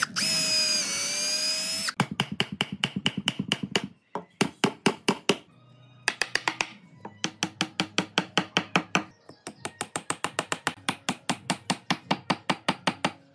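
Workshop tool sounds. A power tool whirs loudly for about two seconds, its pitch dipping and recovering, then a fast train of short, evenly spaced strokes follows, about eight a second, in several runs with brief pauses between them.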